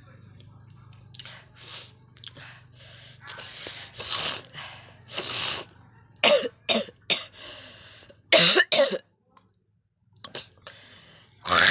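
A person clearing their throat with several drawn-out hacking sounds, then coughing in short sharp groups of three and two, with one more cough near the end. The coughs are put on for a cough-and-spit challenge.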